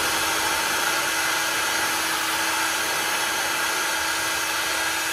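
Hot-air heat gun blowing steadily, with a constant hum from its motor under the rush of air, shrinking heat-shrink sleeving down over a wiring loom.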